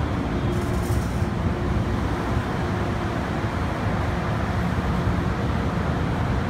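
Steady low rumble and hiss of an underground metro platform with an MTR M-Train alongside behind the platform screen doors, and a brief hiss about half a second in.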